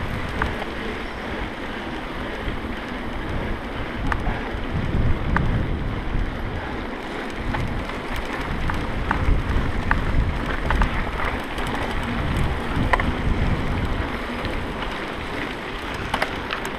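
Mountain bike ridden over a dirt trail, with wind buffeting the microphone as a low rumble and scattered sharp clicks and rattles from the bike and trail.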